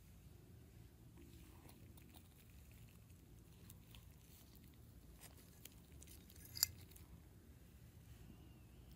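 Metal spoon faintly scraping and tapping on a ceramic plate as it cuts into a glazed cinnamon roll, with one sharp clink of spoon on plate about six and a half seconds in.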